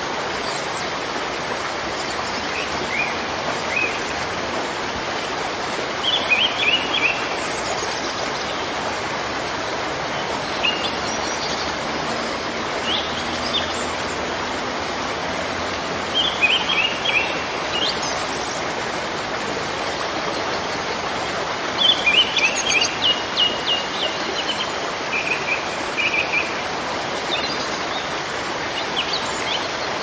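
Steady rush of a forest waterfall, with songbirds chirping in short clusters every few seconds over it; the loudest chirping comes about two-thirds of the way through.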